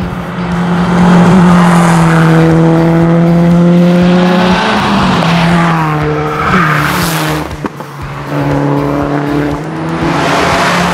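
Subaru WRX STI rally car's turbocharged flat-four engine running hard at high revs on a tarmac stage. The pitch holds high for a few seconds, then falls and rises several times as the car changes gear and lifts off.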